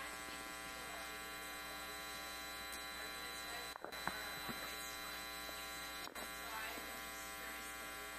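Steady electrical mains hum with a ladder of evenly spaced overtones, with a faint, distant voice underneath. The sound drops out briefly twice, near the middle.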